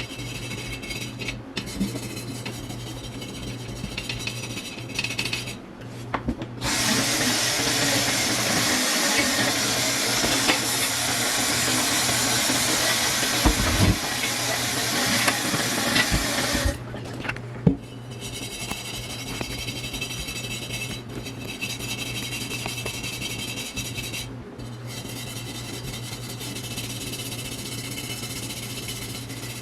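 Water spraying from a hose onto a cast iron kettle lid for about ten seconds, rinsing off material loosened by electrolysis. Before and after the spray there are fainter rubbing sounds, all over a steady low hum.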